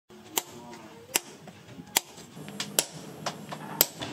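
A hammer striking a hot-cut chisel set on a red-hot motorbike sprocket, cutting the steel: a string of about seven sharp metallic blows. They come about one a second at first, then quicker, and the loudest falls near the end.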